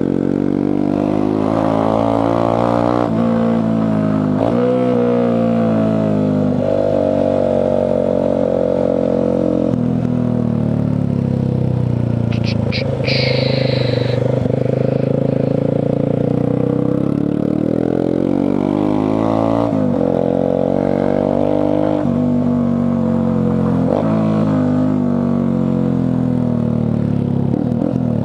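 Motorcycle engine running on the move, its pitch climbing and falling back again and again as it accelerates and eases off through the gears.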